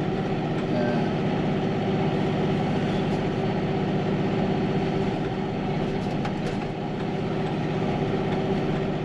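Farm tractor engine running steadily at an even speed while plowing snow, a constant hum.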